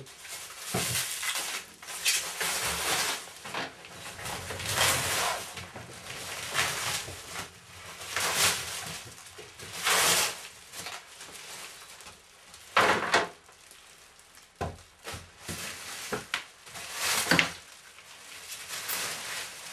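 Clear plastic sheeting crinkling and rustling in irregular bursts as it is pulled and torn off a large stretched canvas.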